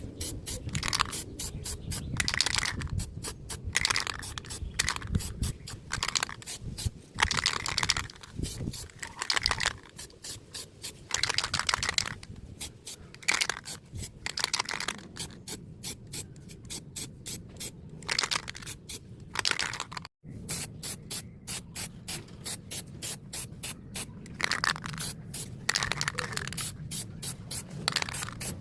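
Aerosol can of silver spray paint hissing in short repeated bursts onto a metal cover plate.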